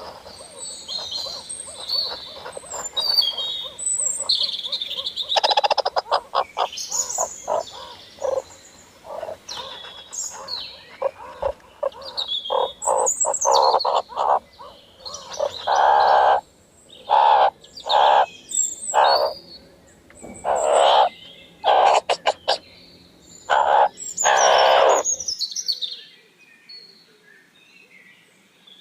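Birds calling: quick high chirps at first, then about five seconds in a series of loud, rapidly pulsing calls, repeated again and again, that stop near the end.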